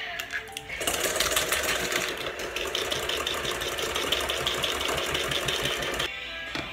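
An electric hand mixer runs in a stainless steel bowl, its beaters rattling steadily against the metal as they beat egg, sugar and butter into a batter. It starts about a second in and stops shortly before the end. It comes after a few light clicks as an egg is cracked open over the bowl.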